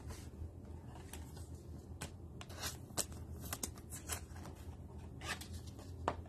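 Trading cards and a clear rigid plastic toploader being handled: scattered light clicks and rustles of card stock and plastic, a few sharper ticks about three seconds in and near the end.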